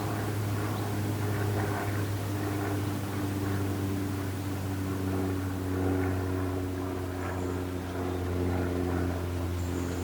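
A steady engine drone: a deep hum with several held tones above it that drift slightly in pitch, under a rough rush of wind.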